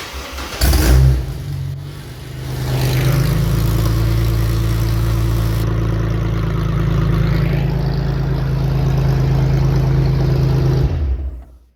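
GMC Envoy engine starting and catching about half a second in with a short flare of revs, then running steadily for about ten seconds before it is shut off near the end. It fires back up after stalling when a loose wire from the harness was sucked into the throttle body and held it open.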